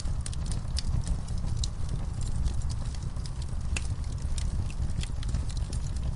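Wood fire burning in a fireplace, crackling with many irregular sharp pops and snaps over a steady low rumble.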